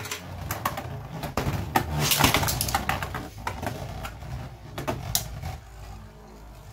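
Two Beyblade Burst spinning tops whirring in a plastic stadium, clacking against each other and the stadium walls in a run of sharp hits. The busiest stretch comes about two seconds in, and the spinning grows quieter in the last second or so.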